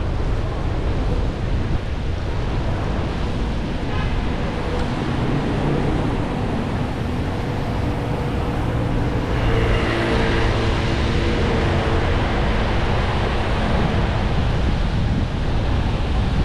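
Wind rushing over an action camera's microphone on a moving electric scooter: a steady, rumbling noise heaviest in the lows. A faint hum joins about halfway through.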